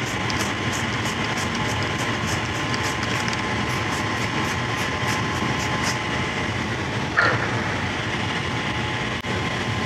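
Aerosol can of Metaflux spray lubricant being shaken and sprayed onto a steel gripper, heard as quick, evenly spaced high ticks that stop about six seconds in, over a steady hum of shop noise. A short falling squeak comes about seven seconds in.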